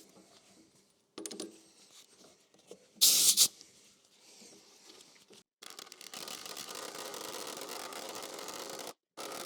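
Pneumatic air chisel driving a nylon chaser into a steel floor-pan panel to form its edge: a short loud hiss about three seconds in, then a steady rapid rattle from about six seconds that stops briefly near the end and starts again.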